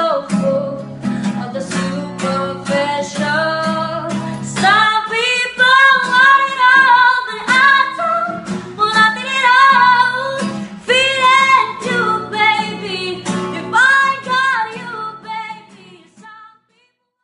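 A woman singing a slow ballad to a strummed acoustic guitar. The guitar leads for the first few seconds, then her voice rises into long held notes with vibrato, and the music fades out near the end.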